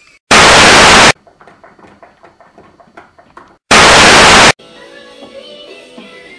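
Two loud bursts of television static hiss, each just under a second long, about three seconds apart, with faint rapid clicking between them. Faint music starts after the second burst.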